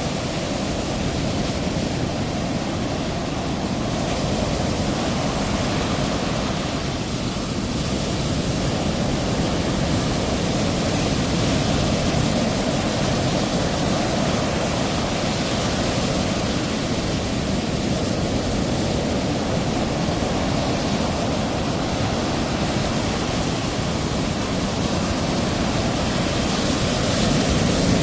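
Steady rushing noise of ocean surf breaking, swelling slightly louder near the end.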